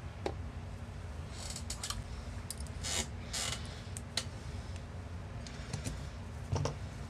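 A carbon fiber top plate being fitted onto a quadcopter frame by hand: scattered light clicks, taps and scrapes as the plate is set down, pressed and shifted into place.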